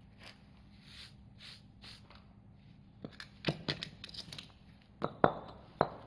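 A cement block being handled on a concrete floor: a few soft brushing swishes, then from about halfway a string of sharp knocks and short scrapes as the block is lifted, turned and rubbed with gloved hands.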